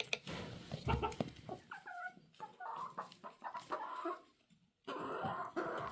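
Chickens clucking in short, broken calls, with scattered light clicks among them.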